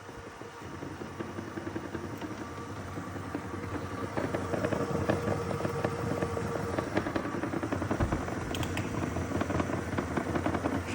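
Dyson robot vacuum running with a loud mechanical noise full of rapid clicking, growing louder about four seconds in, the loud noise its owner complains of alongside a damaged brush.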